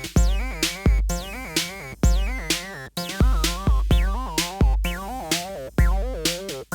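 Electronic beat from a drum machine and synthesizer: a heavy kick with deep bass roughly once a second, sharp ticks between the kicks, and a wobbling synth line with short falling zaps.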